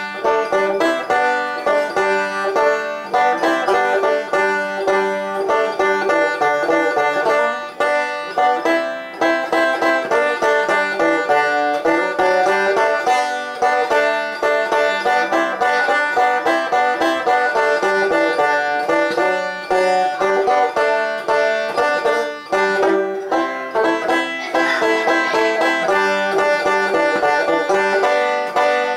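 Solo banjo picked in a quick, unbroken stream of notes.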